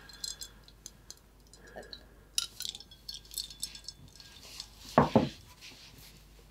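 A drinking glass being handled, with light clinks, and set down on a table with a knock about five seconds in.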